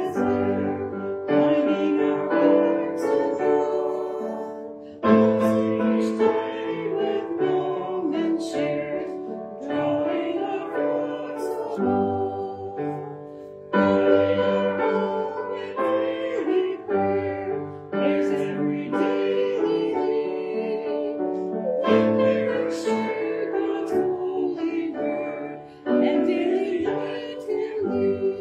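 Congregation singing a hymn with piano accompaniment, in phrases with short pauses between them.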